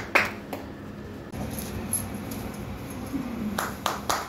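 A few scattered hand claps at the start, then a lull with faint room murmur, and the claps starting up again near the end.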